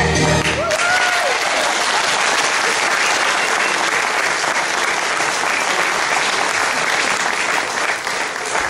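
Church congregation applauding steadily as the recorded dance music stops just under a second in.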